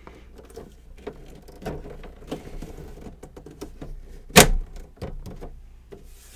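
Small clicks and rustles of a folding hobby spray booth being handled and fitted together, with one sharp knock about four seconds in.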